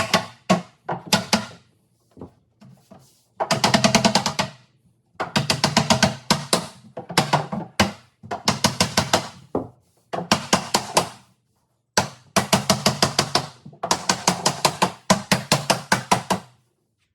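Rapid hammer blows on wood, about eight to ten a second, in runs of about a second with short pauses between.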